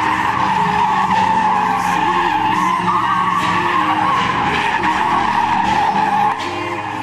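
Tenth-generation Ford F-150 pickup doing donuts: its tires squeal steadily while the engine is held at high revs. The level eases a little near the end.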